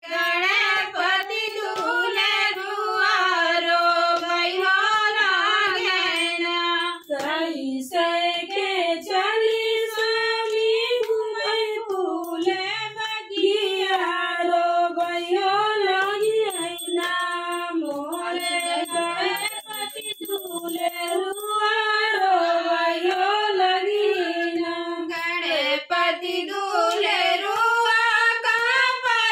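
Several women singing a devotional song together in unison, one melodic line of held, wavering notes with short breaks between phrases.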